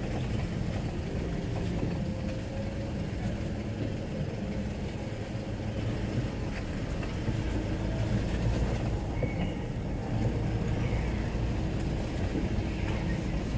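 Steady engine and tyre drone heard inside the cabin of a Mitsubishi Pajero rolling slowly along a paved lane.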